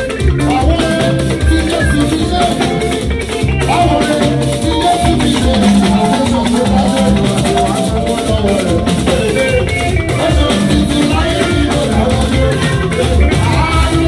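Live band music with a steady shaker rattle over drums and electric guitar, and a man singing into a microphone.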